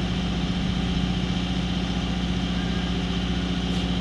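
Steady engine hum, unchanging, with a low rumble and an even hiss over it.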